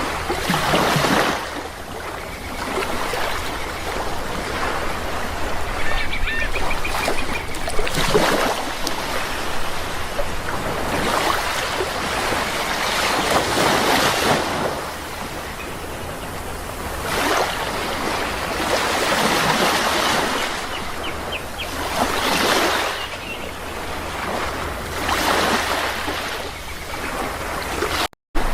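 Sea waves breaking and washing in surges every few seconds, with a few short bird calls over them.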